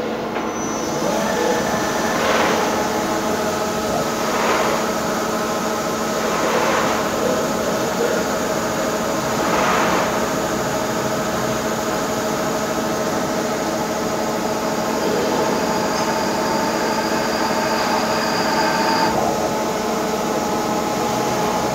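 CNC lathe running through a centre-drilling operation: a steady whine from the spindle and drives, with four short swells of cutting noise about two to three seconds apart in the first ten seconds.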